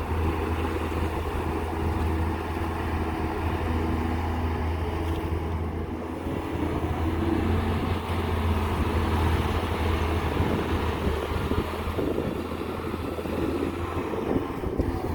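Heavy earthmoving machinery running, its big diesel engine giving a steady low drone with tones wavering above it.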